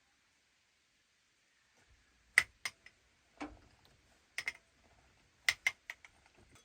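Sharp clicks and light knocks of something hard being handled, in three small clusters of two or three, with a duller knock between the first two clusters.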